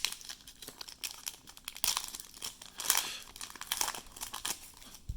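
Foil wrapper of a Panini Mosaic basketball card pack crinkling and tearing as it is ripped open by hand, in a run of irregular crackly bursts.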